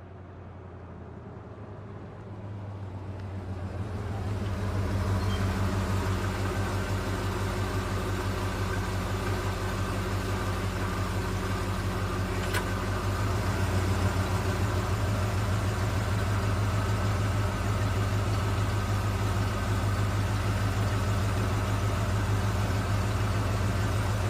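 A vehicle engine running steadily, a low hum that builds over the first few seconds and then holds level. There is a single faint click about halfway through.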